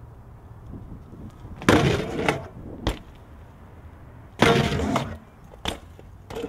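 BMX bike striking a concrete ledge: two harsh clattering impacts, each lasting about half a second, near two seconds in and again past four seconds, with a few short sharp knocks in between.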